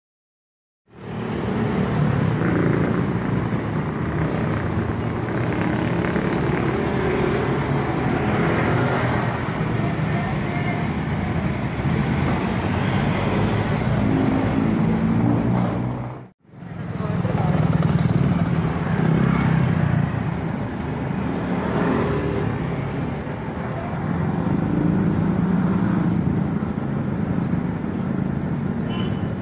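Street traffic: motor vehicle engines running and passing, with people's voices mixed in. The sound cuts out for a moment about halfway through, then the traffic carries on.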